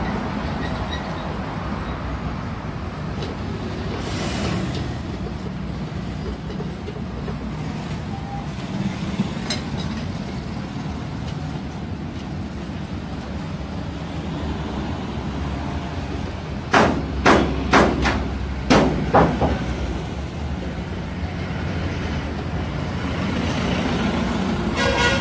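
Six sharp knocks in two quick groups of three, over a steady low workshop rumble, from hand-tool work on a dismantled engine.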